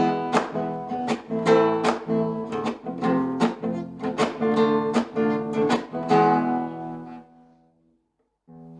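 Acoustic guitar strumming chords in an even rhythm, about two strums a second, as the song's outro. The last chord rings out about six seconds in and fades away, and soft music starts again just before the end.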